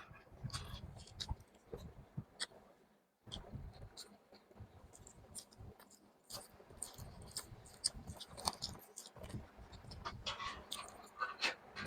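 Close-miked chewing of chicken in gravy: irregular wet mouth clicks and smacks over soft low thumps, with a brief pause about three seconds in.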